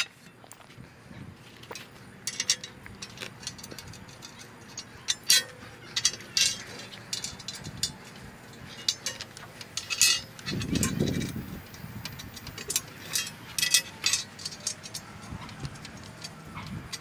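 Small metal parts clinking and clicking as T-bolts are handled and fitted into metal rack rails and tracks, in scattered sharp clinks throughout, with a duller, lower noise lasting about a second near the middle.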